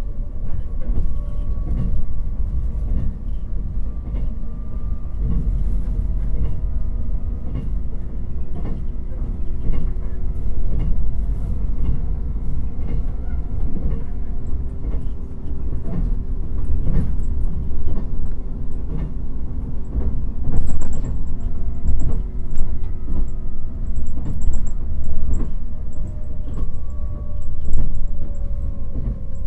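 Inside the motor car of a JR 189 series EMU: the MT54 DC traction motors and gears whine at speed, over a steady rumble of wheels on rail with irregular clacks. The whine rises gently in the first few seconds and slides down in pitch near the end.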